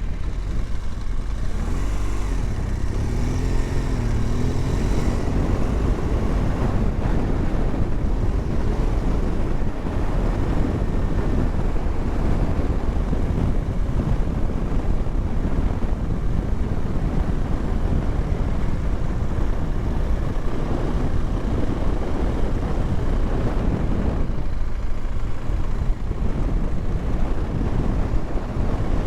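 BMW R1200GSA's boxer-twin engine running as the motorcycle is ridden across beach sand, with heavy wind noise on the microphone. The engine revs rise and fall a few times in the first few seconds, then the sound holds steady.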